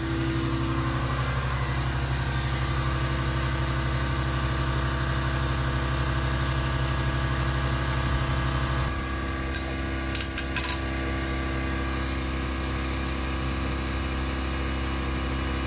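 Steady mechanical hum, with a few light metallic clinks about ten seconds in; the hum's low part changes about halfway through.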